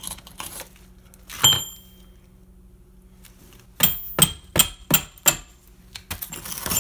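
Mini sledgehammer striking a steel cold chisel set in the mortar joints of brick. One blow comes about a second and a half in, then a quick run of about five blows at roughly three a second, each with a short metallic ring, and a few more near the end.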